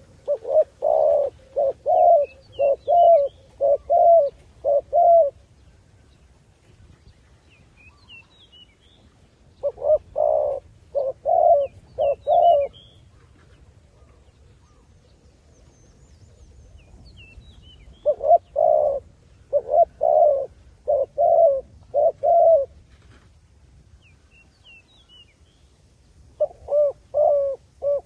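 Spotted dove cooing in bouts of six or seven short, low coos, repeated four times about eight to nine seconds apart, the last bout cut off at the end. Small birds chirp faintly in the background.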